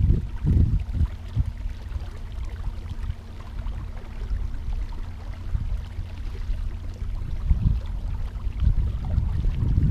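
Wind buffeting the microphone out on the water from a kayak, a low uneven rumble with stronger gusts near the start and end, over a faint steady hum that stops near the end.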